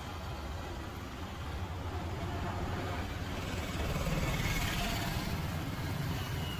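Steady low rumble of vehicle engines idling and running, like street traffic, growing a little louder about four seconds in.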